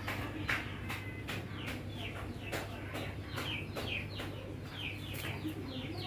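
Birds chirping: a quick run of short, falling chirps, a few each second, over a steady low hum.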